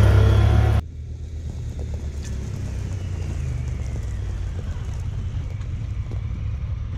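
Honda Pioneer 1000-5 side-by-side's engine under hard acceleration, heard from inside the cab, cutting off abruptly under a second in. Then the steady, much quieter low rumble of a Pioneer's engine as the machine sits and creeps past, with some wind.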